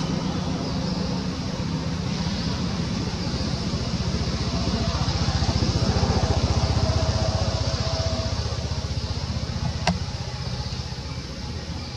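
A motor running steadily, a low pulsing rumble with a high hiss over it, and one sharp click near the end.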